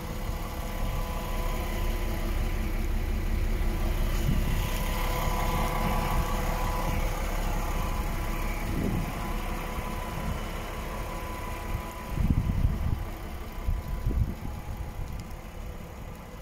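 DAF XF 480 truck's 12.9-litre PACCAR MX-13 inline-six diesel idling steadily, with a couple of louder low rumbles about twelve and fourteen seconds in.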